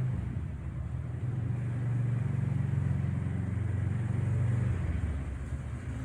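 A motor vehicle's engine running as a low rumble that shifts in pitch about two seconds in, over a steady hiss of rain.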